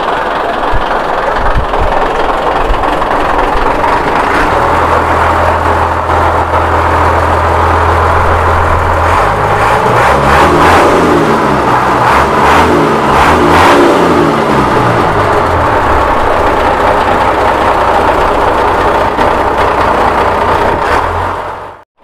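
Mitsubishi 6D16 inline six-cylinder diesel running on a test run in its boat's engine bay, the engine speed rising and falling in the middle before settling back to a steady run.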